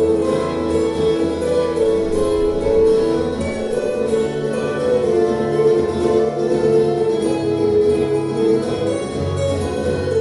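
Two acoustic guitars playing an instrumental duet live.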